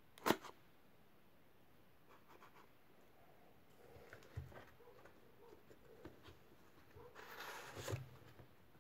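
Handling noise from a cardboard-and-tape model submachine gun: one sharp click just after the start, faint taps and a knock in the middle, and about a second of scraping near the end.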